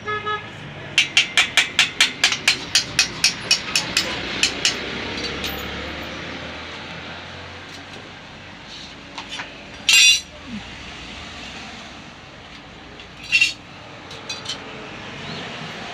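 A rapid run of about fifteen sharp metal taps, roughly four a second, growing fainter, then two louder single knocks later on, from metal tools working on bicycle parts.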